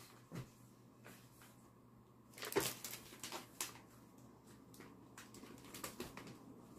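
Faint, scattered clicks and rustles of hands working a folding stroller's frame and fabric canopy, with a sharper click about two and a half seconds in.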